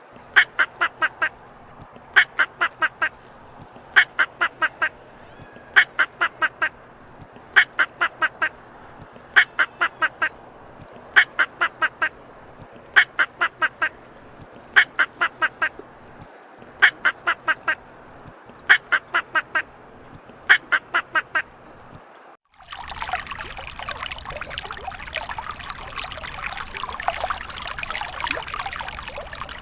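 Duck quacking in quick runs of three or four quacks, repeated about every two seconds. About three-quarters of the way through, the quacking stops and a steady rush of running water takes over.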